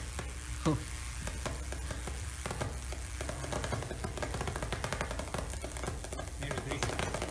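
Crackling, sizzling electrical discharges on a wet, contaminated insulator under high test voltage: dry-band arcing and surface pre-discharges ahead of flashover, which are not corona. A steady low hum runs beneath, and a short falling whistle sounds under a second in.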